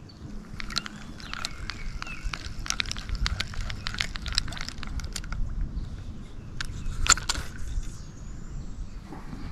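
Irregular clicks and rattles of fishing tackle being handled, with one sharper click about seven seconds in, over a low rumble.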